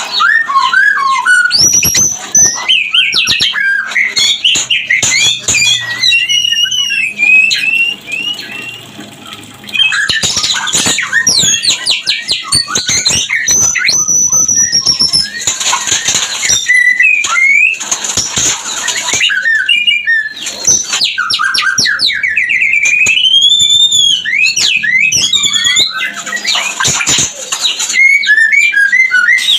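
White-rumped shama in breeding condition singing a loud, varied song of quick whistled notes that slide up and down, broken several times by harsh, noisy chattering phrases. This is the breeding-mode song used as a lure to bring other shamas into breeding condition.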